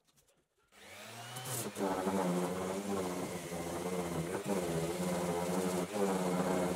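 An electric power tool starting up about a second in with a rising whine as its motor spins up, then running steadily, its pitch dipping slightly a few times.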